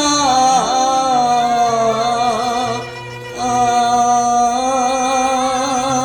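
Cantonese opera song: two long held melodic notes with vibrato over the accompaniment, with a short break about three seconds in.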